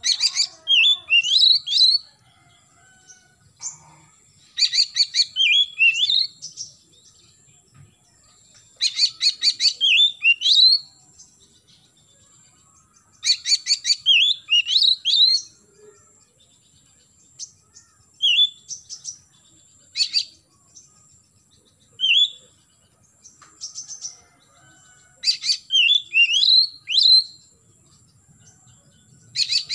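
Oriental magpie-robin singing: phrases of about two seconds, each a quick burst of rapid repeated notes followed by rising and falling whistles, repeated roughly every four seconds with short pauses between.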